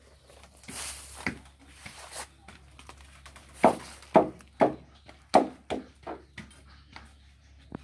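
About six short, sharp knocks and thuds in quick succession through the middle, from a long steel bar being jabbed and levered against a felled palm log and the ground.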